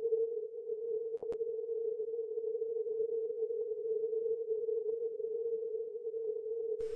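Shortwave receiver audio from a FlexRadio Flex 6500 set for 40-metre CW through a very narrow filter: a steady tone near 450 Hz, the weak Morse signal peaked just above the band noise, with the hiss shaved off above about 1 kHz. A single click about a second in.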